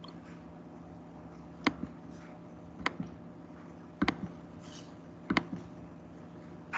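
A series of short, sharp clicks, roughly one every second and some in quick pairs, over a faint steady hum.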